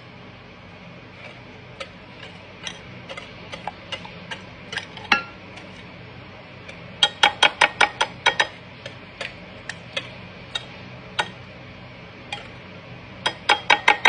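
A utensil clicking against a mixing bowl while butter, sugar and eggs are stirred together. Scattered single clicks, then two quick runs of about six clicks a second, one about seven seconds in and one near the end.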